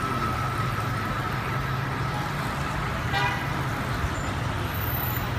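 City street traffic: the steady low rumble of passing cars and motor scooters, with a brief horn toot about three seconds in.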